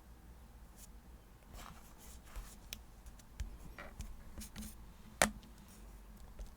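Quiet handling of paper and stationery on a desk: scattered light taps, clicks and paper rustles, with one sharper tap a little past the five-second mark.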